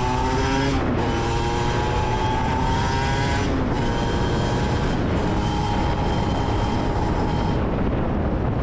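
Aprilia SX 125's single-cylinder two-stroke engine with an Arrow exhaust, accelerating through the gears while riding. Its pitch climbs, then drops at each upshift, about a second in, around three and a half seconds and again at five seconds. Near the end the engine tone fades as the throttle closes.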